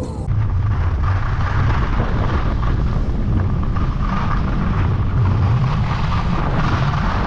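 Wind buffeting the microphone during a downhill ski run: a loud, steady low rumble with a rushing hiss over it.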